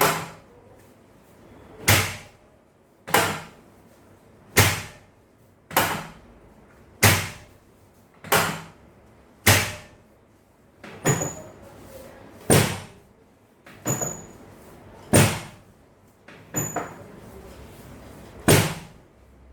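A steady series of about fourteen sharp thumps, roughly one every second and a quarter, each dying away quickly, from repeated percussive impacts during a chiropractic adjustment of the spine. A few land as quick double knocks.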